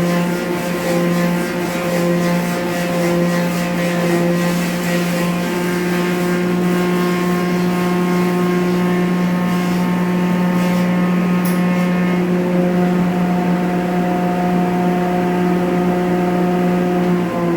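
Clog-making woodworking machine running steadily with a constant motor hum while it cuts a wooden clog. The high cutting noise eases off about twelve seconds in, and the motor starts to wind down in pitch at the very end.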